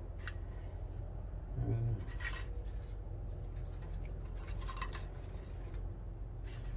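Tortilla chips being taken from a plate and pushed into a pot of thick beans: a few short, light scratchy crackles spread through, over a low steady hum.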